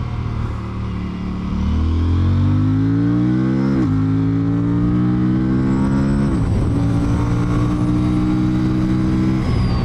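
Aprilia Tuono 457's parallel-twin engine accelerating hard, its revs climbing through the gears with three upshifts about four, six and a half and nine and a half seconds in. Wind rush on the onboard microphone runs underneath.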